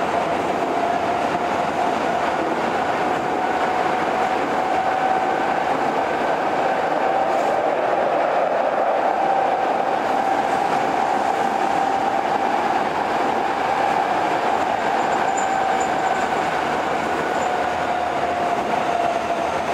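Kobe Municipal Subway 1000 series car with GTO-VVVF traction equipment running between stations, heard from inside the car: a steady rumble with a whine that rises slightly over the first half and sinks again towards the end.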